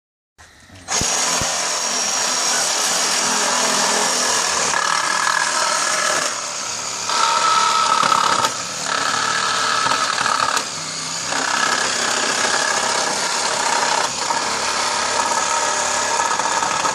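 Reciprocating saw (Sawzall) running at full speed, its blade cutting through the nails between the pallet boards. The whine eases off briefly a few times as the cut shifts, then picks back up.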